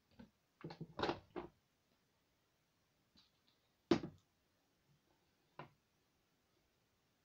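A few brief taps and knocks from makeup items being handled: a quick cluster about a second in, then a sharper single knock about four seconds in and a faint one near the end.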